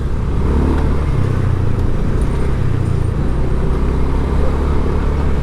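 Steady street traffic: motor vehicle engines running close by with a continuous low rumble.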